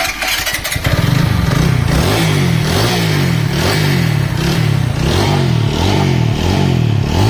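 TVS Apache RTR 200 4V's single-cylinder engine running with the throttle blipped over and over, its pitch rising and falling. It sounds smooth, with no timing-chain rattle, on a freshly replaced timing chain.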